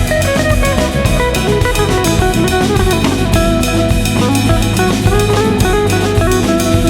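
Background music: a loud track with a steady drum-kit beat and guitar.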